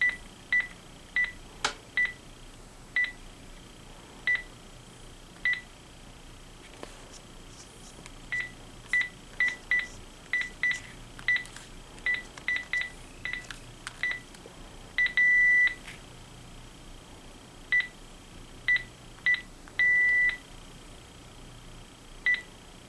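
Keypress beeps from a Panasonic KX-TG6521 cordless phone as its buttons are pressed: about two dozen short single-pitch beeps at an uneven pace, with two longer beeps of about half a second near the middle and about two thirds of the way through.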